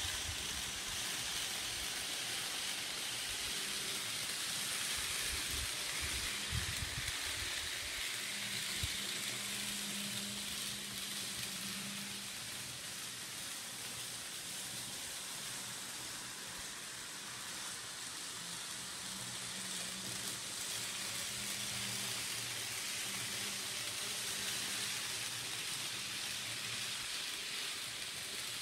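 N scale model trains running on a layout: a steady hiss with a faint low motor hum that fades in and out. A few low thumps in the first seven seconds.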